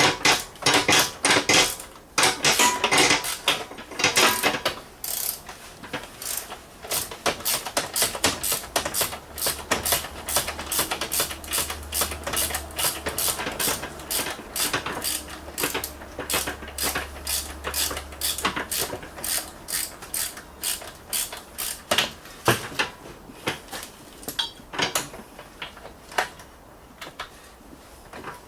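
Hand socket ratchet clicking rapidly as bolts are wrenched loose, with louder clanks in the first few seconds.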